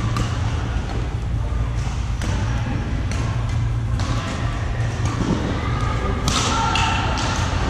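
Badminton hall ambience: scattered sharp racket-on-shuttlecock hits and knocks from games in play, with a burst of high squeaks about six seconds in, over a steady low hum.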